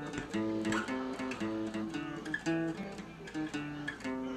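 Acoustic guitar picked by hand, playing a melody of single notes that change pitch a few times a second, each with a sharp attack and a short ring.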